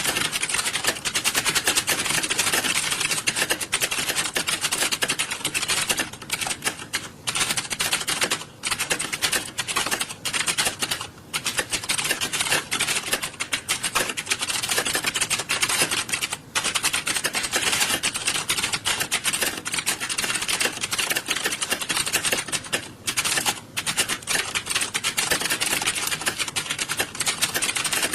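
Many computer keyboards being typed on at once: a dense, continuous clatter of key clicks with a few brief lulls.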